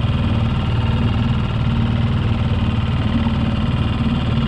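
Small Mercury 3.5 outboard motor running steadily, a continuous low engine drone with a fine rapid pulse.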